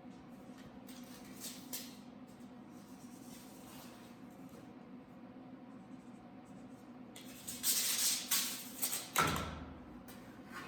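Workshop handling noises over a steady low hum: faint clicks early, then a louder scraping rustle about seven seconds in, ending in a thud.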